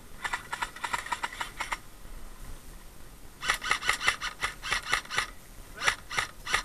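Airsoft guns firing rapid shots: a quick run of about ten shots, a pause, then a longer run of about a dozen, then three single shots near the end.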